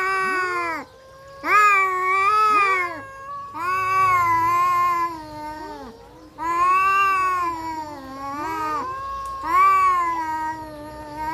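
Two orange tabby cats yowling at each other in a threat standoff before a fight: long drawn-out calls that waver in pitch, about five of them with short breaks between, the two voices overlapping.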